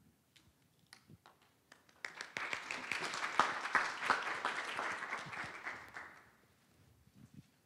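Audience applause: a few scattered claps, then a burst of many people clapping about two seconds in that lasts about four seconds and dies away.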